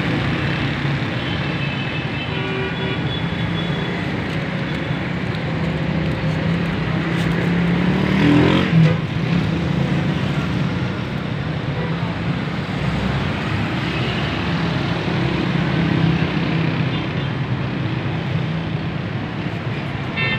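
Steady road traffic noise, with a brief louder swell about eight seconds in.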